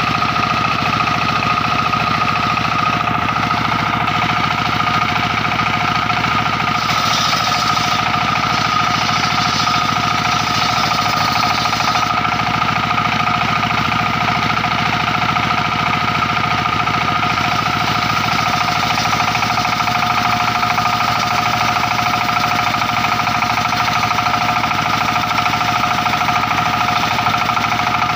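Engine-driven circular-saw sawmill running steadily: a fast, even engine beat under a steady high whine. Extra hiss comes in between about seven and twelve seconds in.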